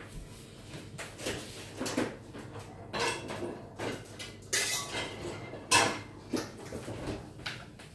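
Kitchen dishes and utensils clattering as they are handled on a counter: a string of irregular clinks and knocks. The loudest come a little past the middle and about six seconds in.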